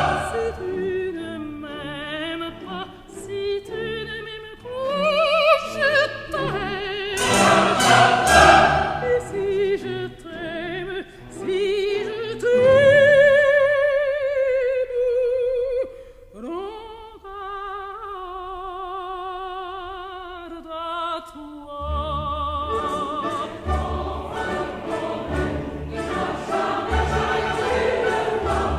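Operatic singing with strong vibrato, long held and sliding notes over an orchestral accompaniment that grows fuller and more rhythmic after about 22 seconds.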